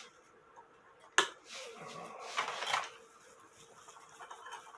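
A sharp click about a second in, followed by a couple of seconds of scraping and rustling as a clock movement and its mounting wire are handled on a test stand, then quieter handling noises.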